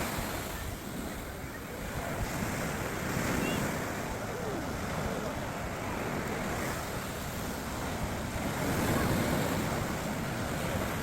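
Rough sea surf breaking and washing up on the beach, swelling and easing with each wave, with wind buffeting the microphone.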